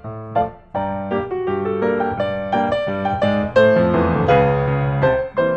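Background piano music: a steady run of single notes, with a short break about half a second in.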